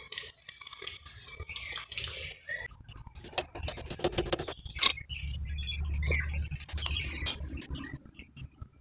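Hand tools and small metal engine parts clicking and clinking in an irregular run of sharp ticks, densest a few seconds in, as the Allen bolts holding the timing chain guard are undone and the guard is worked free.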